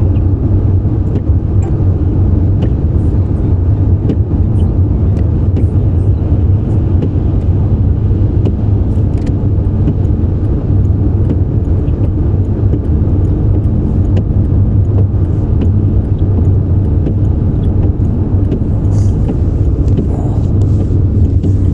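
Steady low rumble of a car driving, heard from inside the cabin: engine and tyre noise on a wet, slushy road.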